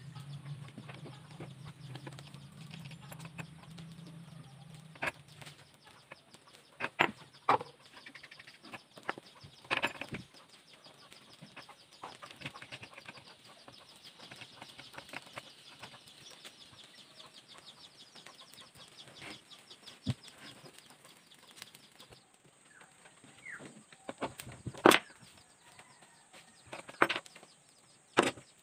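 Scattered sharp clicks and knocks of small metal parts and hand tools being handled while a router's shaft nut and spacer are fitted by hand, with quieter handling noise in between.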